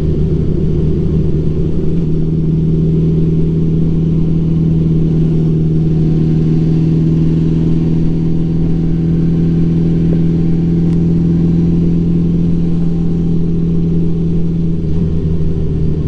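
1984 Honda Gold Wing Aspencade's flat-four engine running under way at an even, steady pitch.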